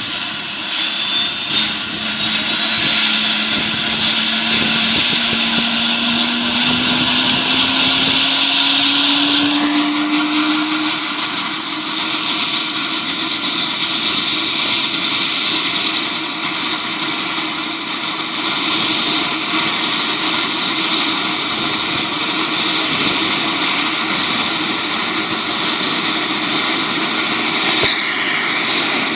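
Eurocopter EC145 helicopter running on the ground, its twin turboshaft engines and main rotor making a loud steady whine and rush. The whine rises in pitch over the first ten seconds or so, then holds steady. A short burst of noise comes near the end.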